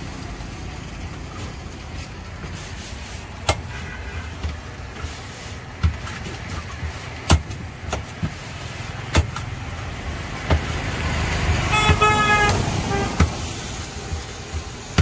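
Steady street traffic rumble with a vehicle horn tooting in a short pulsing burst about twelve seconds in. Several sharp knocks come at intervals before it.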